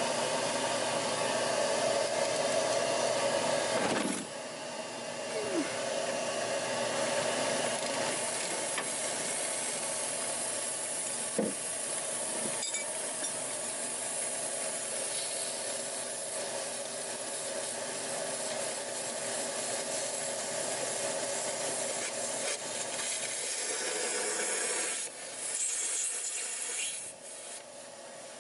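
Vacuum cleaner running steadily, drawing suction on the engine's oil system so the oil is held in the sump while the drain plug is out. It drops in level about four seconds in.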